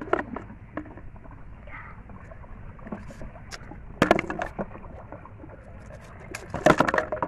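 Sharp clicks and clatters of broken shells being handled and picked over on a rusty metal sheet, with two busier bursts of clicking, about four seconds in and near the end, over steady background noise.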